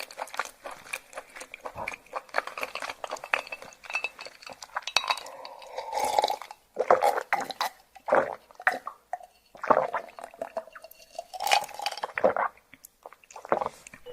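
Close-miked eating of raw yellowtail sashimi: crisp, wet chewing and mouth sounds made of many sharp little clicks, with louder irregular bursts in the second half.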